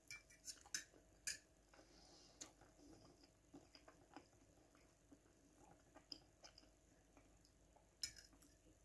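Metal fork clinking and scraping on a china plate in a few short, scattered clicks, several in the first second and a half and more near the end, with faint chewing between them.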